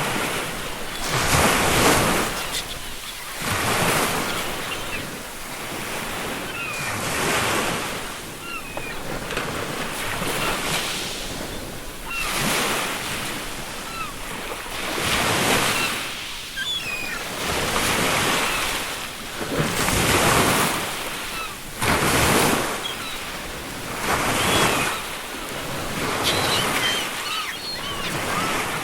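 Ocean waves surging and washing in, one after another about every two to three seconds, with faint seagull calls scattered through.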